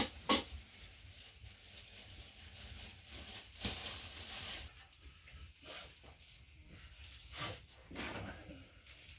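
Scattered clicks, taps and light crackling as boiled eggs are handled, cracked and peeled by hand over a metal bowl, with two sharp taps right at the start.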